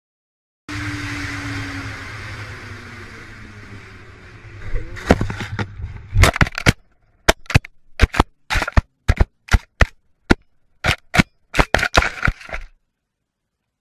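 Car crash as heard from a dash cam. Steady road and engine noise grows louder, then breaks into a run of about fifteen sharp impact cracks over about five seconds before cutting off.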